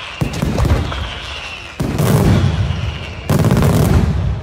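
Daytime fireworks display: aerial shells and salutes bursting in rapid, overlapping volleys of loud bangs. Three waves, about a second and a half apart, each starts suddenly and rolls on in a dense rumble.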